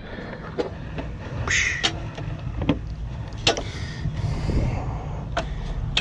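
1980s Carrier Brown Round air-conditioning condenser starting up on test, its newly replaced fan motor spinning the fan: a steady low hum that builds up just after the start, with scattered clicks and knocks.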